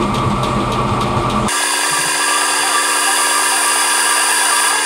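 Metal lathe running and spinning a shaft in its chuck. From about a second and a half in there is a steady whine made of many tones; before that comes a rougher, noisier sound.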